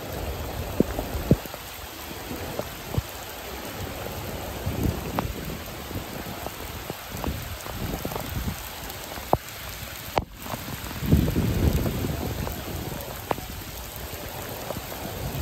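Heavy rain falling, with many single drops striking close by. The sound cuts out briefly about two-thirds of the way through.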